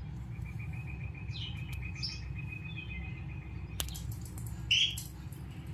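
Small birds chirping: a rapid, even run of short repeated notes lasting about three seconds, with a few scattered higher chirps, then one louder chirp near the end.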